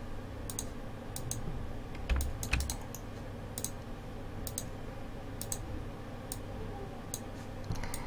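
Computer mouse and keyboard clicks, scattered and many in quick pairs, with two duller knocks about two seconds in, over a low steady hum.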